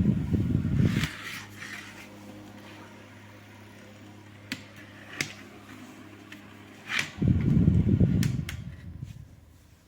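Electric fan running, its air rumbling against the microphone. After about a second this drops to a low steady hum with a few sharp clicks, then the rumble comes back about seven seconds in and fades away near the end.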